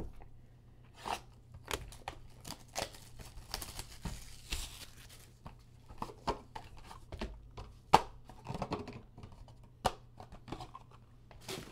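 Cardboard trading-card hobby box being opened by hand: a tear of the seal about four seconds in, amid many short clicks and rustles of the cardboard flaps being pried open.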